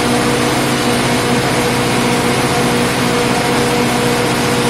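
Generator set engine running at a steady speed: an even, unchanging mechanical hum.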